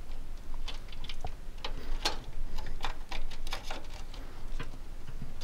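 Hands working inside a desktop computer case, among its cables and memory slots: irregular light clicks and taps.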